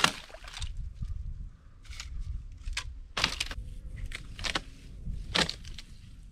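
Dry dead branches cracking and snapping as they are broken and pulled loose for firewood. There are several separate sharp cracks, the loudest right at the start and another about five seconds in.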